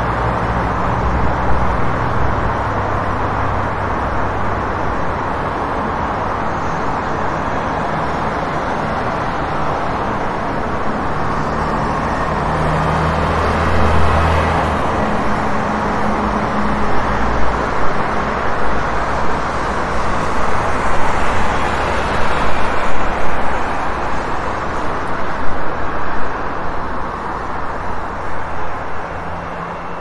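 City street traffic: a steady wash of car and bus engines and tyre noise, with the low hum of idling or passing heavy vehicles coming and going. It gets louder and choppier past the middle, then fades down near the end.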